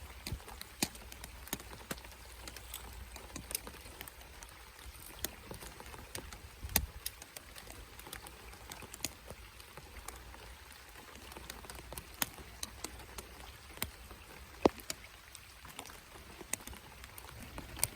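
Rain falling, with individual drops striking close by as irregular sharp ticks over a soft steady hiss.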